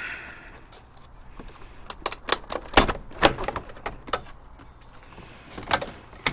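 Jeep Wrangler JK's plastic front grille being pulled off by hand: a string of sharp clicks and knocks as its clips pop loose and the plastic rattles, mostly in a cluster a couple of seconds in and again near the end.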